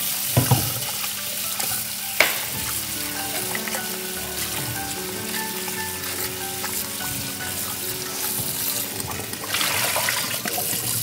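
Knife chopping green onions on a cutting board, a few sharper knocks among lighter cuts, over a tap running into a sink that grows louder near the end.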